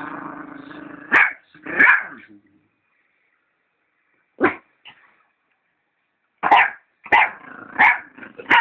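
A dog growling, then barking in short sharp barks: two near the start, a single bark about halfway after a stretch of silence, and a quicker run of four near the end.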